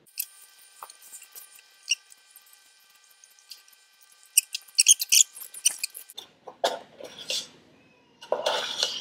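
Plastic spoon scraping and squeaking inside a Dairy Queen Blizzard cup as the last of the ice cream is dug out. Faint at first, the scrapes and clicks get louder over the second half.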